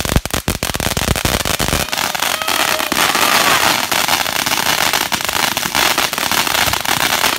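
TNT Revolution ground fountain firework spraying sparks, a dense crackling and popping over a steady hiss that grows louder about two seconds in.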